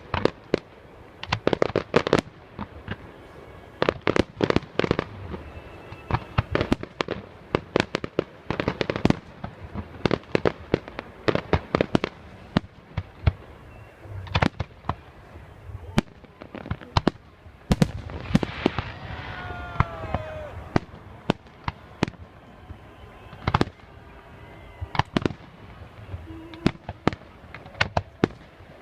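Fireworks display: shells bursting in rapid volleys of sharp bangs and crackle, with short lulls between the volleys.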